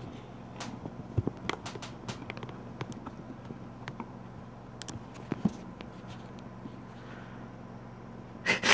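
Light clicks and taps from a phone being handled and adjusted in its mount, scattered every second or so over a steady low hum.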